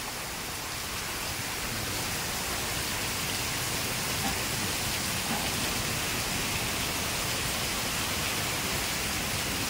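Heavy rain pouring down steadily in large drops, a dense even hiss of water on the ground.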